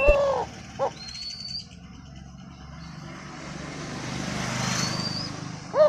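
Eurasian collared dove cooing: the long middle note of a three-note coo ends at the start and the short final note follows about a second in, then the next phrase begins near the end. Thin chirps from a small bird and a broad hiss that swells and fades in the middle sit underneath.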